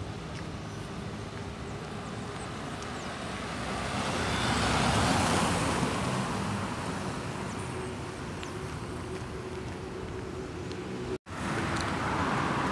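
City street traffic: a steady hum of passing cars, with one vehicle swelling louder as it passes close about four to six seconds in. The sound cuts out for an instant near the end.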